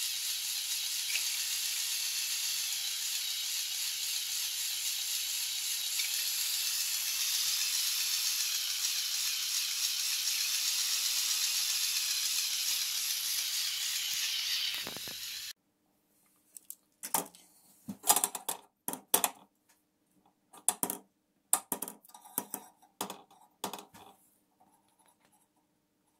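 LEGO Technic 42055 bucket wheel excavator running on its Power Functions XL motor, its gear train making a steady high whirring hiss that cuts off suddenly about fifteen seconds in. Then a string of separate plastic and metal clicks and knocks as the model is handled on a mechanical beam scale and the scale's sliding weight is moved.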